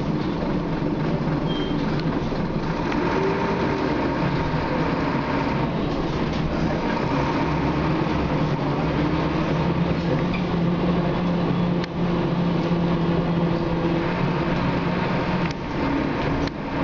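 Scania K93CRB bus's six-cylinder diesel engine and drivetrain droning with a whine, heard from inside the passenger saloon as the bus drives along, with road noise. The engine note briefly dips a couple of times, about twelve and fifteen seconds in.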